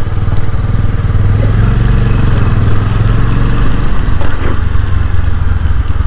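Motorcycle engine running steadily while riding at an even speed.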